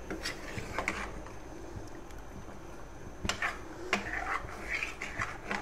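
Steel spoon stirring a watery pot of minced chicken and sliced potatoes, knocking and scraping against the metal pot with a handful of sharp, irregularly spaced clinks.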